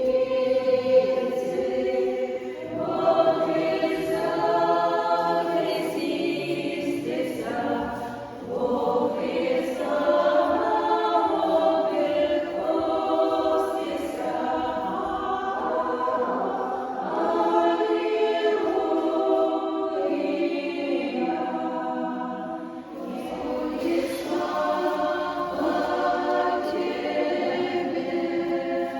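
Church choir singing a liturgical chant unaccompanied, several voices in long held phrases that pause briefly around 8 s and 23 s in.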